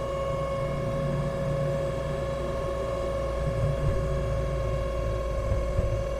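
Polski Fiat 126p at highway speed, its air-cooled two-cylinder engine and drivetrain droning with a steady, loud high-pitched whine over low road rumble. This is a terrible noise of unknown cause.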